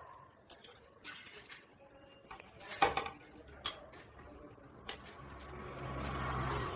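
Table fan parts being handled during disassembly: a series of sharp clicks and clinks of small hard parts. Near the end comes a longer scraping, rubbing noise that grows louder.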